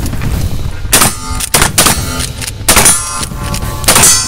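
Shotgun fired four times in quick succession, the shots roughly half a second to a second and a half apart. Each blast is followed by a short ringing tail.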